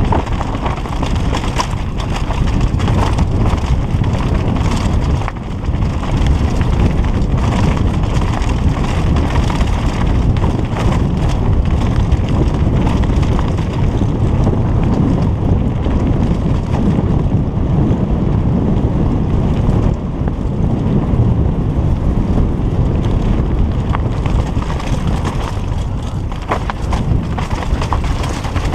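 Downhill mountain bike descending a rough, rocky trail: tyres running over loose stones, with continual rattling and knocking from the bike, and heavy wind buffeting on the microphone.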